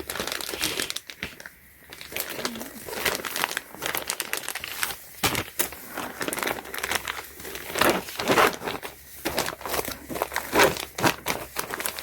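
Irregular crinkling and rustling as a packaged canvas tote bag is handled and opened, with a brief lull about a second in.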